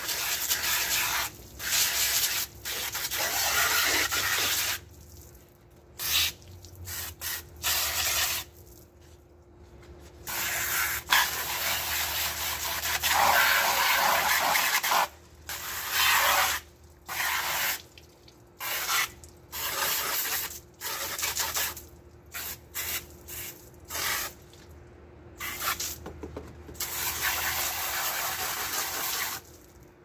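Garden hose pistol nozzle squeezed on and off many times, its water jet spattering on a window air conditioner's styrofoam part to rinse it clean.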